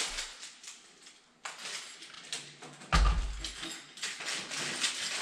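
Work noise as parts and tools are handled: scattered clicks, taps and rustling, with one heavy low thump about three seconds in.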